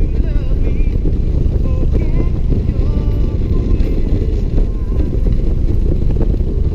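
Touring motorcycle cruising at road speed: steady engine rumble under heavy wind noise on the microphone, with faint music over it.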